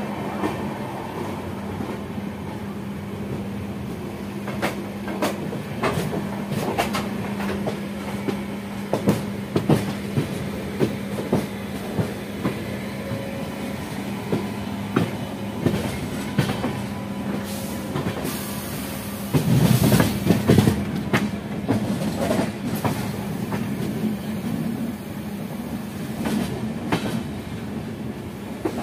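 Passenger coach's wheels running over the track as an express train pulls out of a station, with irregular clicks and clatters over rail joints and points above a steady running hum. A louder rushing passage comes about twenty seconds in.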